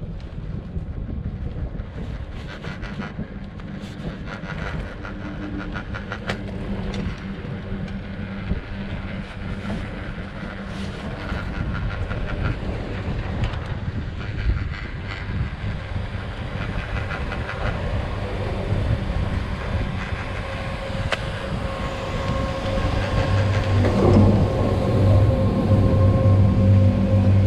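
Ski chairlift running, with a rhythmic clatter of repeated clicks like the rope passing over tower sheaves. A low steady hum grows louder over the last few seconds.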